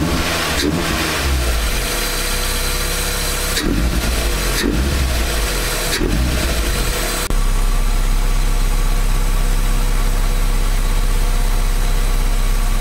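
Mazda MX-5 (NB) 1.8 four-cylinder engine running with a newly fitted pod-filter cold air intake: the revs rise and fall several times over the first seven seconds, then it settles into a steady idle.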